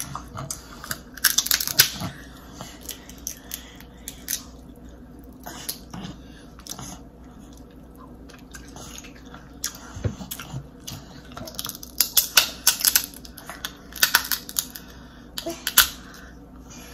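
Crab leg shells cracking and crunching as they are bitten and broken open, in several bursts of sharp crackles.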